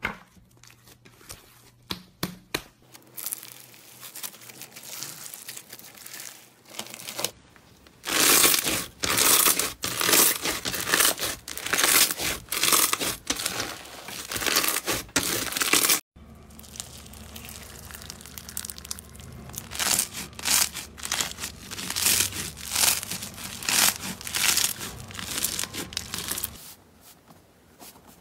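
Hands squeezing slime: scattered soft pops and squelches at first, then, from about eight seconds in, dense crunching and crackling as a bead-studded crunchy slime is pressed and squeezed, which carries on after a sudden break about halfway through.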